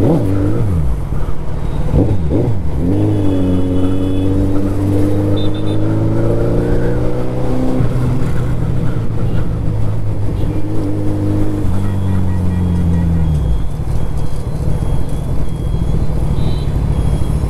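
Suzuki Hayabusa's inline-four engine running in slow city traffic, its pitch rising and falling with the throttle. A few short high beeps sound along the way, and about thirteen seconds in the engine note drops away, leaving a steady low rush of wind and road noise.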